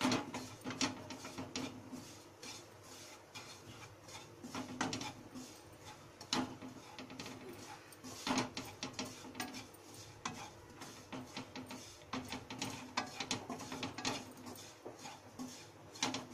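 Wooden spatula scraping and tapping against a nonstick kadhai in irregular strokes, stirring wheat flour that is slowly roasting in ghee.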